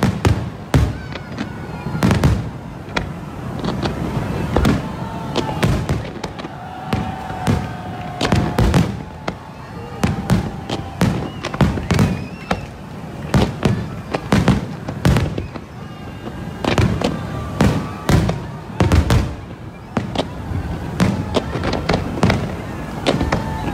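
Fireworks display: a dense, continuous barrage of aerial shell bangs and crackles, going off irregularly several times a second.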